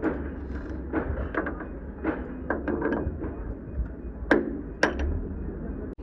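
Irregular knocks and clanks of hand work in a truck repair shop, about ten impacts of varying strength with the two loudest near the end, over a steady low hum.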